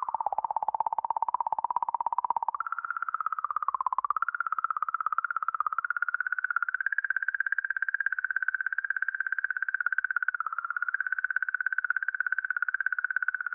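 The 'singing comet' recording of comet 67P/Churyumov-Gerasimenko: oscillations in the magnetic field around the comet, measured by the Rosetta probe and sped up into an audible warbling tone with a fast flutter. The pitch jumps up about two and a half seconds in, dips briefly near four seconds, then holds steady at the higher note.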